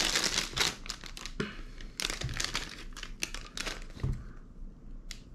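Packaging crinkling and rustling as an item is unwrapped by hand: dense crackling at first, thinning to scattered crackles and clicks after about two seconds.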